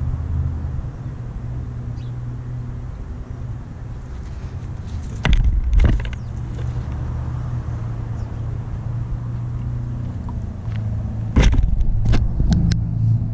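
A steady low motor hum runs throughout. Two thumps close to the microphone come about five seconds in as a dog's paw steps past the ground-level camera. Near the end there is a louder thump followed by a few sharp clicks close to the camera.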